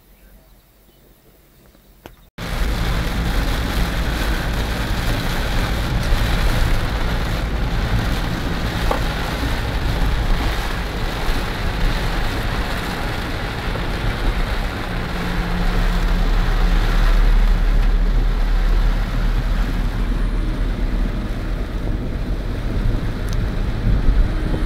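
Heavy monsoon rain with wind buffeting the microphone: a loud, steady rushing noise with a deep rumble underneath. It cuts in abruptly about two seconds in, after a short quiet stretch.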